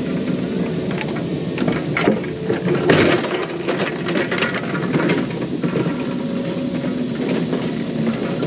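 Compact excavator's diesel engine running steadily as the machine tracks and works its blade and bucket, with sharp metal clanks about two and three seconds in.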